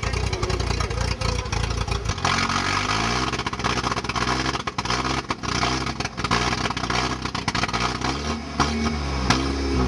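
Off-road trial buggy's engine running, then from about two seconds in revving up and down again and again, with clattering knocks from the chassis.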